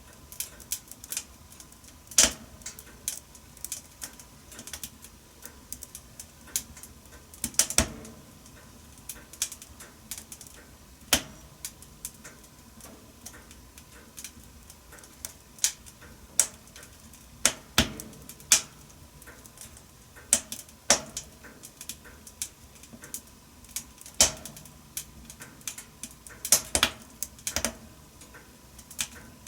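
Wood fire crackling in a wood-burning stove: irregular sharp snaps and pops, a few louder than the rest, over a faint hiss.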